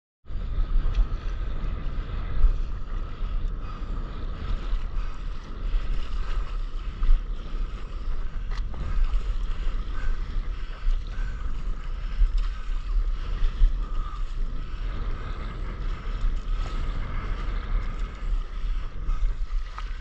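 Wind rumbling on an action camera's microphone, with seawater sloshing and splashing close by as the camera rides at water level.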